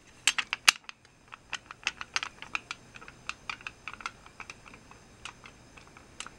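Irregular small metal clicks and rattles from a vintage Meazzi hi-hat stand being worked by hand: loose parts of the old stand rattling. A few louder clicks come in the first second, then lighter ones follow at about two or three a second.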